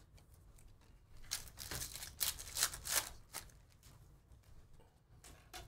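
2023 Panini Phoenix football cards being slid and flicked against one another in the hand. It is a faint run of short rustling swishes and flicks, busiest from about a second in to past the middle.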